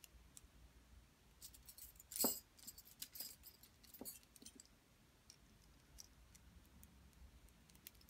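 Metal rings clinking and clicking against each other as they are handled, in a quick cluster about two seconds in that holds the loudest clink, with one more click about a second later and a few faint scattered ticks after.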